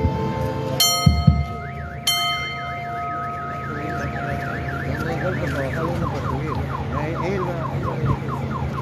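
Electronic vehicle siren cycling through its tones. A harsh steady horn-like tone starts about a second in and again a second later, a fast warble runs over it for a few seconds, and then it switches to quick, repeated falling sweeps.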